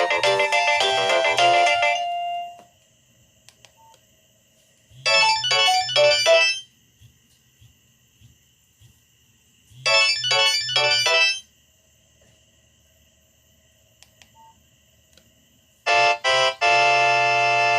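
Nokia 6085 mobile phone playing ringtones through its loudspeaker: a melodic tone ends about two seconds in, a short synthesised phrase plays twice about five seconds apart with silence between, and a new ringtone starts near the end.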